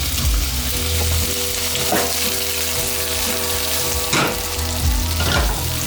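Raw prawns sizzling in hot oil in a pan on a very high heat, a steady frying hiss with a few sharper crackles.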